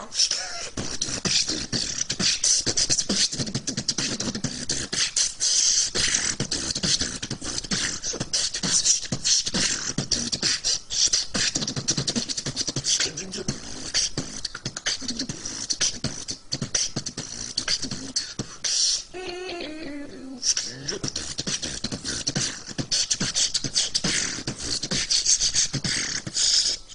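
Beatboxing: a person's voice making fast drum-like kicks, clicks and hissing hi-hat sounds in a steady rhythm. About two-thirds of the way through comes a brief pitched vocal sound that glides downward.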